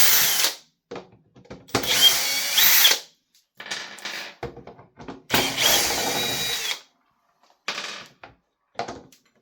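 Cordless drill driving out the screws that hold on a leaf blower's plastic side shroud. It runs in short spurts of a second or so, each rising and falling in pitch: one ends just after the start, then two more follow. Faint clicks and rattles of screws and plastic come between the spurts.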